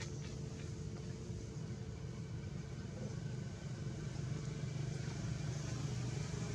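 Steady low hum of an engine running, unchanging throughout, with a couple of faint clicks right at the start.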